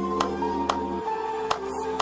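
Background music: held notes over a light clicking beat.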